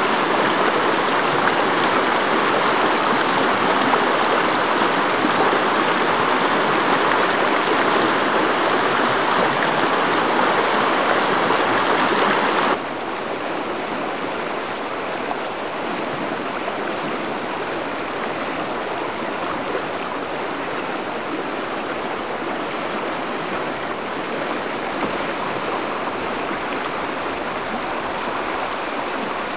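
River whitewater rapids rushing steadily. Just under halfway through it drops suddenly to a quieter, softer rush of water.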